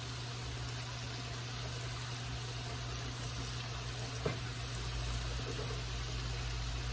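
Oyster mushrooms frying in a pan of hot oil, a steady bubbling sizzle, over a low steady hum, with one short click about four seconds in.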